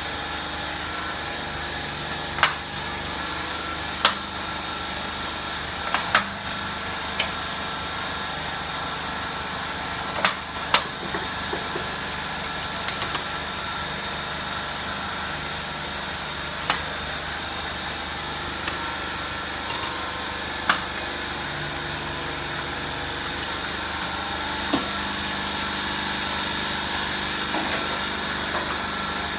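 Rempeyek-making machine running with a steady motor hum and whine, broken by sharp knocks at irregular intervals, about a dozen in all.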